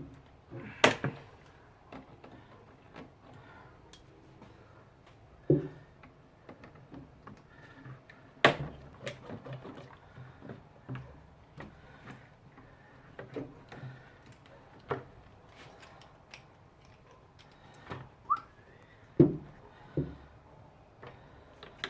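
Scattered clicks, knocks and clunks of hands working a rubber coolant hose and the plastic coolant overflow tank in an engine bay, with a few sharper knocks and a brief rising squeak near the end.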